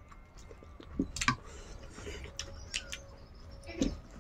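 Close-miked eating sounds: wet lip smacks and chewing clicks from people eating rice by hand. There are a few sharp smacks about a second in and another cluster near the end.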